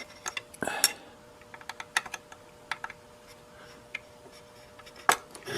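Small screwdriver clicking and scraping against the very shallow slotted screw that holds the radio's variable capacitor, as it is worked at the screw head. Scattered light clicks, with a longer scrape about a second in and a sharp click near the end.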